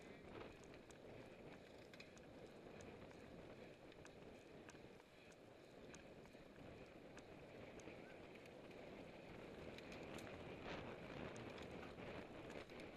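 Faint rush of wind over the action camera's microphone with road-bike tyre and drivetrain noise, faint small clicks scattered throughout; it grows a little louder in the last few seconds as the bike speeds up.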